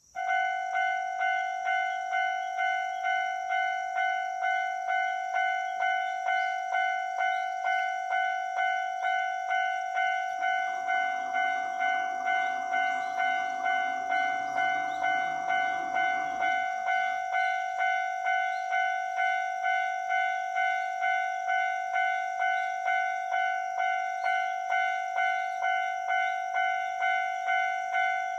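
Japanese level-crossing alarm ringing its electronic 'kan-kan' bell, an even pulsing tone at about two strikes a second that starts suddenly. It warns that a Kintetsu train is approaching the crossing.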